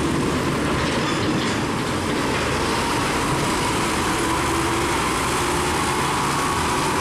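A steady rumbling, rattling vehicle noise at an even level that starts and stops abruptly.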